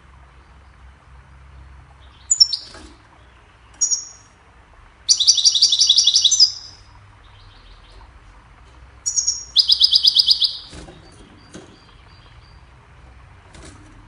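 European goldfinch singing: a few short high calls, then two loud runs of rapidly repeated notes, each lasting about a second, the second run about three seconds after the first.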